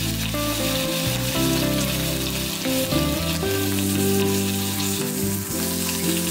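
Bacon and small sausages sizzling in a frying pan, a steady hiss, with background music playing under it.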